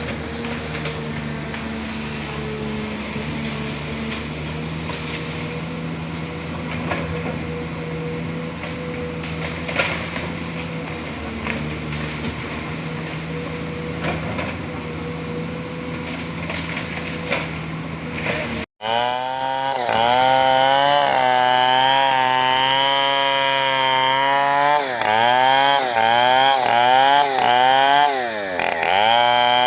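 A steady engine hum from heavy machinery with a few light knocks. After an abrupt cut, a chainsaw runs loud at high revs, its pitch dipping and recovering again and again as it bogs in the wood.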